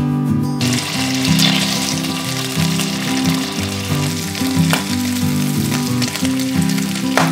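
Strips of bacon sizzling as they fry in a pan, starting about half a second in, with a couple of sharp clicks, over background music.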